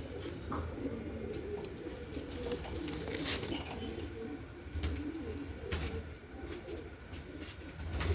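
Shirazi fancy pigeons cooing continuously in low, wavering calls, with a few short clicks about three seconds in and again near six seconds.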